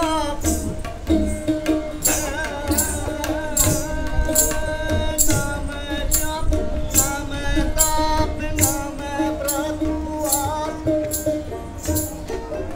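Live Indian folk music: a stringed instrument's bending melody over a steady drone, with tabla strokes keeping a beat about twice a second.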